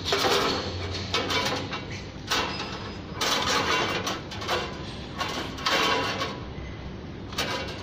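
Steel band saw blade being worked onto the saw's wheels by hand: a string of irregular scraping and rattling bursts of metal against metal, about eight in all, with short gaps between them.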